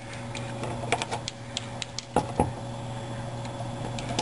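Light, irregular metallic clicks of a hex key and screw being turned by hand in the flange of a linear bearing on an aluminium plate, a few clicks a second in the first half and two sharper ones about two seconds in, over a faint steady hum.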